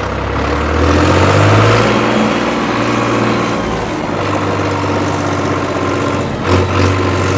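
Case IH 495 utility tractor's diesel engine running as the tractor drives slowly in first gear. The engine note rises about a second in and then holds steady.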